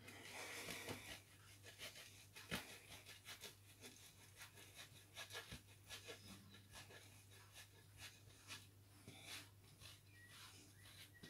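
Faint rasping scrapes as a block of cheese is rubbed across a round, flat metal hand grater, in short, irregular strokes.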